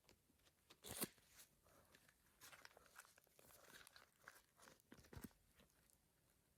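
Close-up crinkling, crunching and tearing sounds of toy packaging being handled and opened: a sharp crackle about a second in, then a run of smaller crinkles and clicks.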